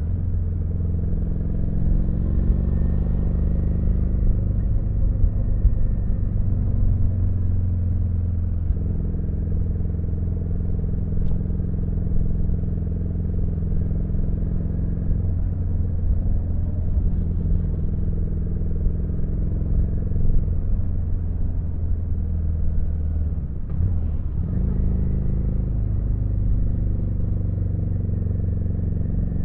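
Kawasaki VN900's V-twin engine running steadily as the motorcycle rides along, with a brief dip and change in engine pitch about three quarters of the way through.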